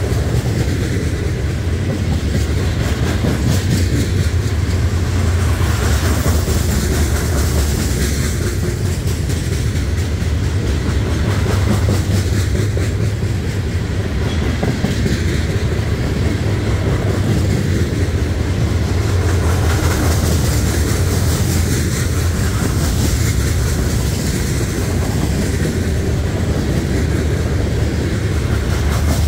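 Union Pacific freight train's covered hopper cars rolling past at speed: a steady, loud rumble of steel wheels on the rails, with a running clickety-clack of wheels passing over rail joints.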